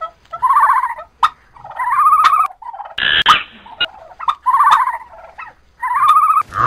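An animal calling four times, each call a short rattling trill about half a second long, with sharp clicks between the calls.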